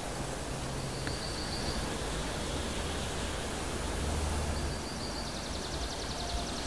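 Outdoor ambience: a steady rushing hiss, with a high, rapid trill twice, briefly about a second in and again for about two seconds past the middle.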